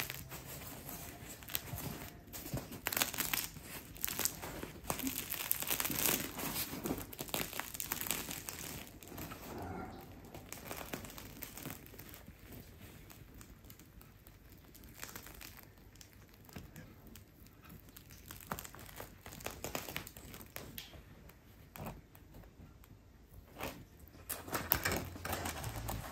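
Crisp crust of a sourdough Maltese loaf crackling and cracking as the loaf is torn open by hand. The crackles come thick and fast at first, thin out, then pick up again briefly near the end.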